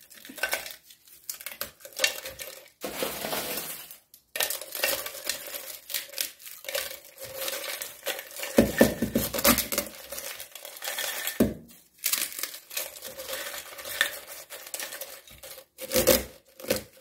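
Dry eggshells being crushed by hand in a glass bowl: irregular crunching and crackling, with shell and knuckles knocking against the glass. The crunching is heaviest and deepest about nine seconds in.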